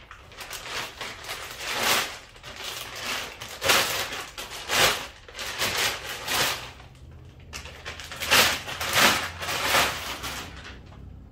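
Clear plastic bag crinkling and rustling in irregular crackly bursts while a chrome handlebar is pulled out of it.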